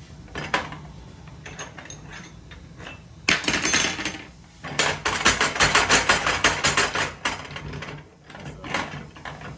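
Steel running-tool parts being turned and worked by hand in a pipe vise: metal scraping against metal for about a second, then a fast, even run of metallic clicks for about two seconds, with a few separate knocks.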